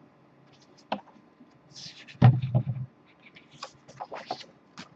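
Paper and card being handled: rustling, with light clicks and taps, and one louder, low handling sound about two seconds in.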